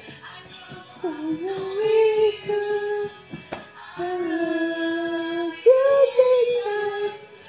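A high voice singing a slow song in long held notes, with short breaks between phrases.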